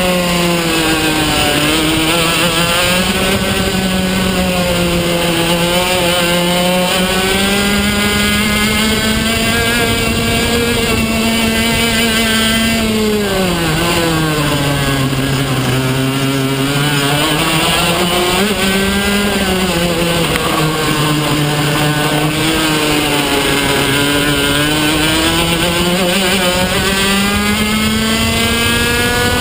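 PRD two-stroke kart engine at race pace, heard onboard: its note climbs under acceleration and drops off under braking for each corner, falling lowest about halfway through for a slow corner before climbing again.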